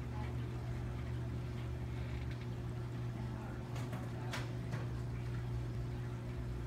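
Steady low hum of a reef aquarium's pumps and equipment, with a couple of brief faint clicks about four seconds in.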